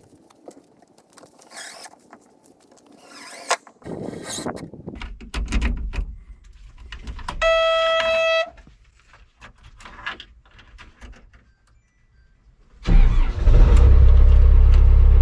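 Clicks and clatter, then a single warning beep about a second long, then an engine starts near the end and runs with a loud, steady low rumble.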